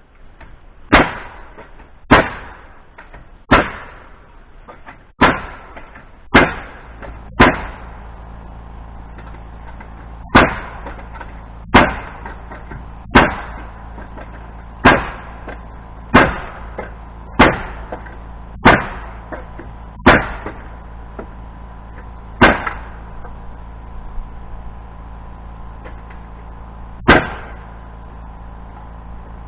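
Nails being driven into wooden framing: sixteen sharp strikes, mostly a second or so apart, thinning out toward the end. A steady low hum comes in about six seconds in.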